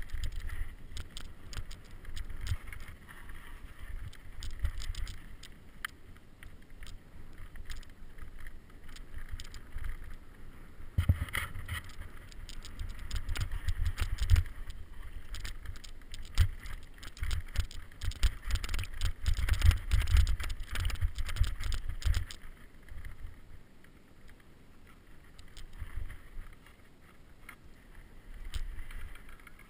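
Mountain bike riding down a rough dirt singletrack: wind buffeting the microphone as a low rumble, with dense rattles and knocks as the bike jolts over the bumps. Busiest in the middle, easing off about two-thirds of the way through.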